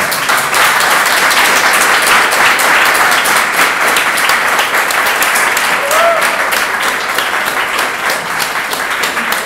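A roomful of people applauding, many hands clapping steadily and densely.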